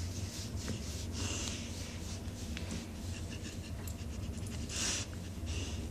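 A large dog breathing in loud, irregular hissy breaths while lying on her back being petted, the loudest breath near the end.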